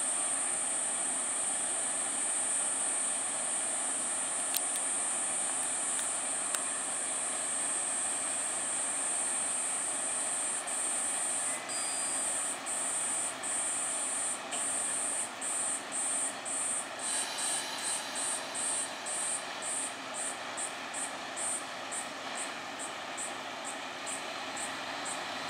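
A KRT 6000 series diesel railcar's engine running steadily at the platform. Over it runs a loud, high insect drone that breaks into fast, regular pulsing about halfway through, quickening toward the end.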